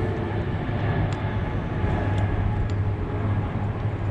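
Steady low rumbling background noise, like distant traffic, with a few faint light clicks.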